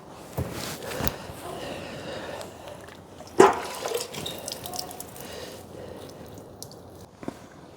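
Liquid dripping and splashing, with scattered small knocks and one sharper knock about three and a half seconds in.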